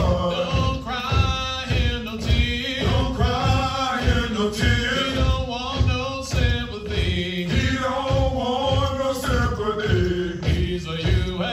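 Group of men chanting a Marine Corps marching cadence in unison, over a steady low beat.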